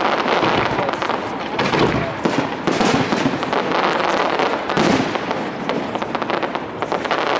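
Aerial firework shells bursting in quick succession during a display: a dense, continuous run of bangs and crackling with no gaps.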